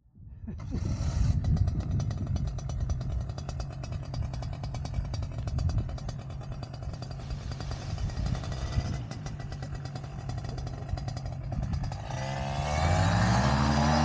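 Paramotor engine idling with an even pulsing beat, then throttled up about 12 seconds in, its pitch rising and getting louder as the wing comes up overhead for the launch run.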